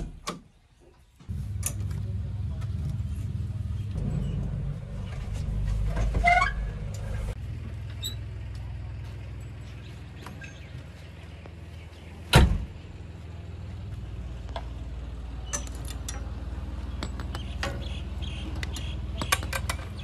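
JCB 3DX backhoe loader's four-cylinder diesel engine starting about a second in and then idling steadily, a little louder for a few seconds after it starts. A single sharp bang a little past the middle, with light clicks and knocks from the cab door.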